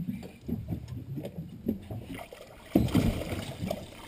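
Water sloshing against a small boat's hull, with a louder rush of noise starting a little under three seconds in.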